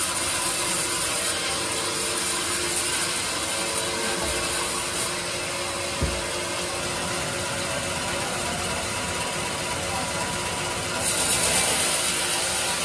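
Benso band sawmill running steadily as it saws a hard teak log. There is a single knock about six seconds in, and the hiss grows louder for about a second near the end.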